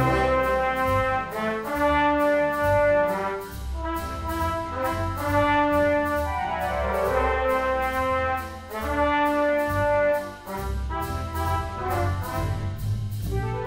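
Background music, brass-led, playing long held notes over a steady beat.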